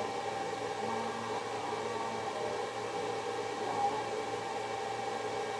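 Steady machine hum and hiss, even throughout, with a faint high whine running through it.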